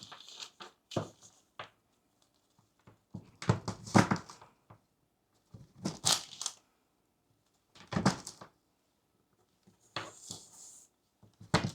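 A knife chopping a bar of semi-sweet baking chocolate on parchment paper over a kitchen counter. It comes in about five short bursts of rapid chops, one every couple of seconds.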